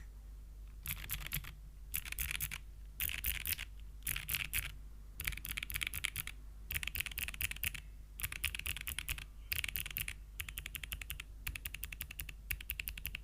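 Geonworks F2-60 mechanical keyboard with Gateron Melodic clicky switches in an aluminium plate, typed on in short fast bursts of clicks with brief pauses between.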